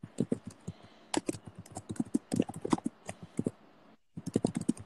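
Marker pen tapping and scraping on a small whiteboard as a diagram is drawn: a quick, irregular run of clicks and taps, with a short break near the end.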